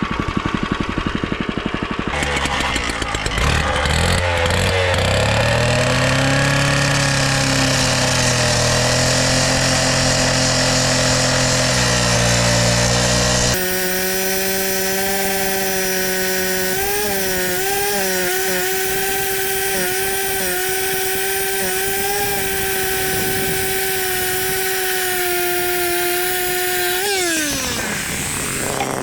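Small engine-driven power tool running at high speed with a steady pitch that shifts a couple of times, then winding down near the end.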